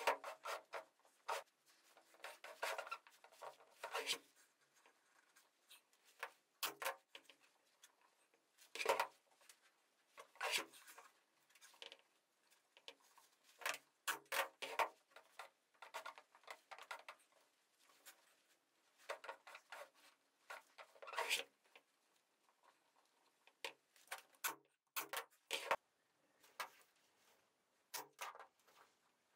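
Upholstery fabric rustling as it is pulled and stretched over a wooden frame, with sharp clicks at irregular intervals from a pneumatic staple gun driving staples into the wood.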